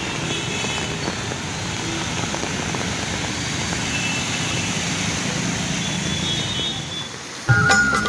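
Steady hiss of heavy rain and of car traffic driving along a flooded road, tyres running through standing water. About seven and a half seconds in, music with a flute melody starts abruptly and drowns it out.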